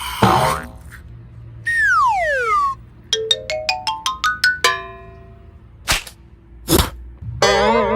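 A string of cartoon sound effects: a falling pitch glide, then a quick rising run of about eight short plinked notes, two short whooshing strokes, and near the end a wobbling, warbling tone.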